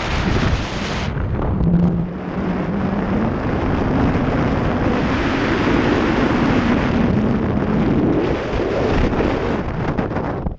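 Wind buffeting the climber's body-worn action-camera microphone, a loud, continuous rumbling rush. A faint low drone rises slightly in pitch beneath it from about a second and a half in.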